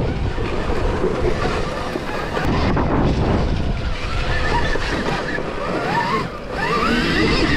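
Wind buffeting the microphone of a helmet camera while a Stark VARG electric dirt bike rides a dirt trail. The electric motor's whine rises in pitch as it accelerates, a couple of times in the second half.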